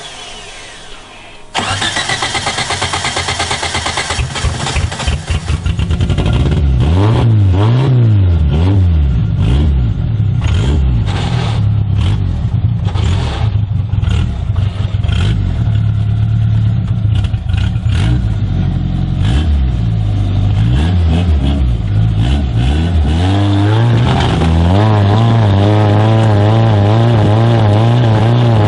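Off-road rig's engine revving hard, coming in suddenly about a second and a half in. Its pitch then climbs and falls again and again as the throttle is worked, and is held high and steady near the end.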